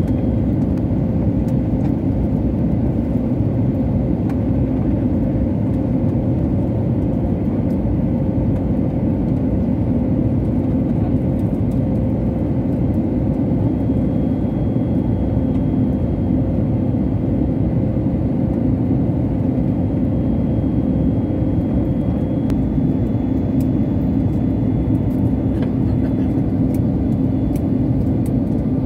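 Airliner's turbofan engines and airflow heard from inside the cabin during the descent to land: a steady, dense low rumble with a faint thin tone running through it.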